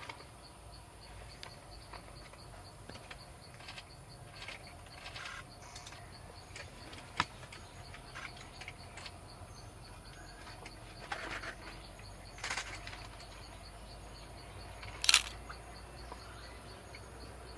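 Quiet forest ambience with scattered short clicks and taps. There is a sharp click about seven seconds in and a louder one about fifteen seconds in.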